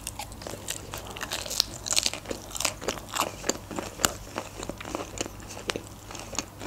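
A mouthful of sushi roll being chewed, with many short smacking and crunching mouth clicks.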